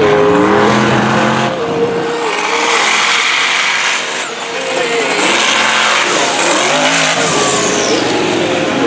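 Mega truck's engine running hard and revving as the truck races across a dirt course, its pitch rising and falling with the throttle.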